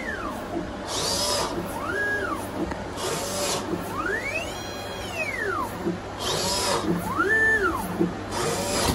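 A homemade string-art threading machine running: its stepper motors whine in arcs, rising then falling in pitch as the threading arm speeds up and slows down between pegs, about every two to three seconds. Short hissing rushes come between the whines.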